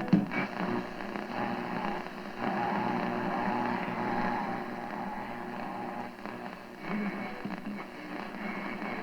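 Mid-1930s Remington Model 250 tube radio being tuned across the dial: crackling static between stations, with brief fragments of broadcast audio coming and going.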